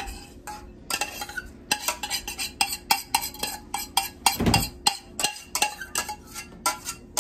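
Spoon stirring a casserole mixture in a dish, clinking against the sides at about three strokes a second, with one dull thud midway.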